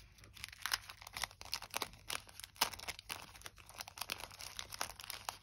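Sheets of tissue paper rustling and crinkling as they are handled and unfolded, in quick irregular crackles, the sharpest about two and a half seconds in.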